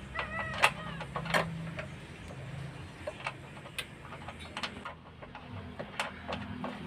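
Scattered sharp clicks and light metallic taps, a few close together early on and then about one a second, as a hand handles the bolts and parts of a car's engine mount. A few short squeaky chirps come about half a second in.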